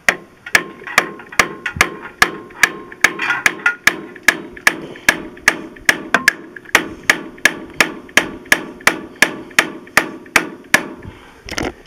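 Brass hammer striking a bolt bottomed in the end of a David Brown 1200 tractor's camshaft, a steady run of about two to three metallic blows a second, driving the timing cam gear off the shaft without a puller.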